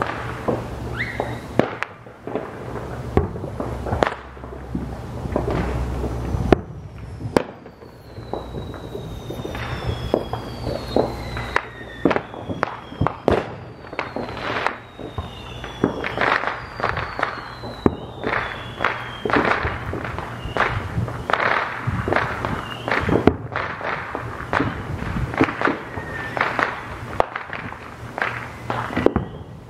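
Aerial fireworks show: a steady, irregular run of bangs and crackling bursts, with several falling whistles through the middle stretch.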